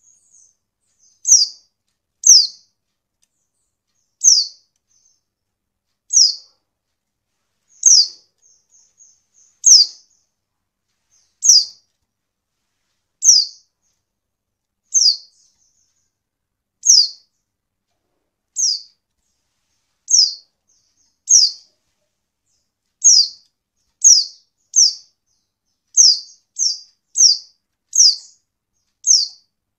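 Female white-eye (pleci) calling: short, high chirps that slide downward, about one every second or two, coming faster and closer together near the end. This is a female call used as a lure to prompt male white-eyes to answer and sing.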